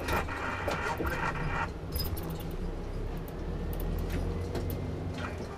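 Cabin noise aboard a highway coach moving slowly in city traffic: a steady low engine and road rumble with scattered small clicks and rattles.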